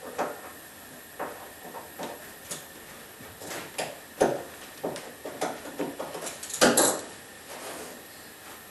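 Hands working at the bed of a High-Z S-1000 CNC router: irregular clicks, knocks and scrapes of wood and metal as the freshly engraved wooden sign is freed from the machine table. The loudest clatter comes about two-thirds of the way through.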